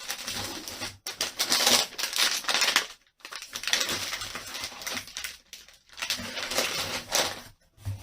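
Packaging being handled and crinkled by hand, in irregular rustling, crackling bursts with short pauses between them.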